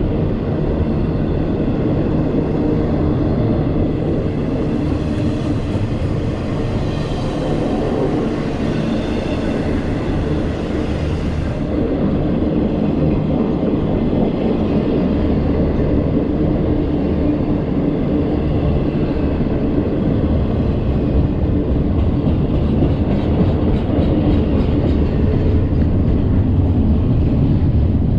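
Double-stack intermodal container train passing close by, its steel wheels running steadily and loudly on the rails.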